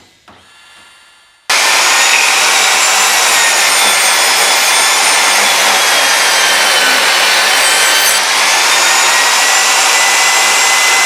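Ridgid R4513 10-inch portable table saw ripping a wooden board: its running blade and motor give a loud, steady whine under the cutting noise. The sound cuts in suddenly about a second and a half in, and its pitch dips slightly around seven seconds in and recovers.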